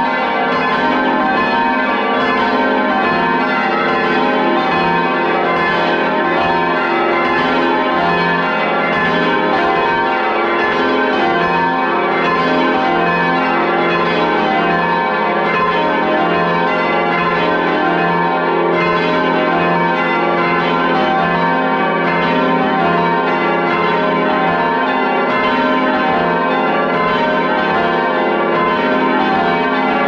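A ring of ten church bells swinging on their wheels and ringing one after another, close up in the bell chamber. The strikes overlap into a loud, continuous, steady peal.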